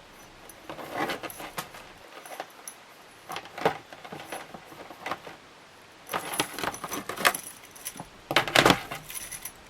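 Metal fan parts and hardware being handled, rattling and clinking in several short bursts, the loudest near the end.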